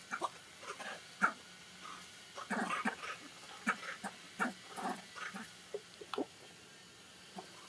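Young macaques making short, irregular squeaks and whimpers, mixed with small clicks, with a denser flurry about two and a half seconds in.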